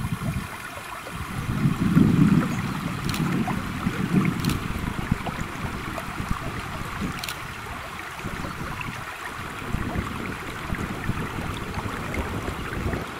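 Steady rush of river current running over a shallow gravel riffle. Gusts of wind rumble on the microphone in the first few seconds, and three sharp clicks stand out a few seconds apart.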